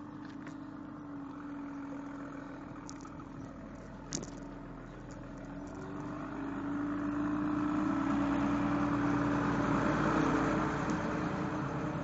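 A box lorry's engine running steadily at close range, growing louder from about halfway as the lorry draws alongside. A single sharp click about four seconds in.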